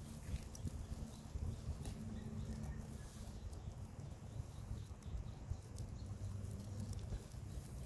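Several guinea pigs chewing kale and grass: a rapid patter of small crunching clicks over a low rumble.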